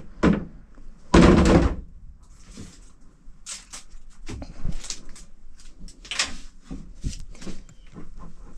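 Plastic buckets and equipment being shifted around in an enclosed cargo trailer: a loud hollow thump about a second in, then scattered knocks and clatters.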